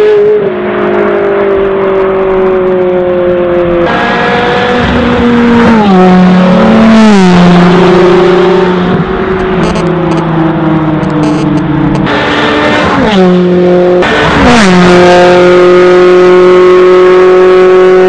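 Ferrari 360 Challenge Stradale V8 engines running at high revs as the cars accelerate and pass. The engine note holds high, then drops and climbs sharply several times with quick gear changes. The sound jumps abruptly a few times between shots.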